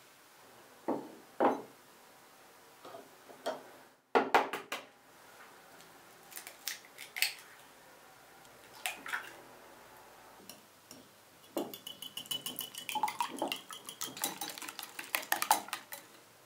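A wooden spoon stirring thick choux pastry dough in a glass bowl, knocking against the glass a few times. Then several sharp clicks of eggs being cracked and broken into a glass bowl. From about two-thirds in, a wire whisk beats the eggs against the glass bowl in fast, rattling clinks.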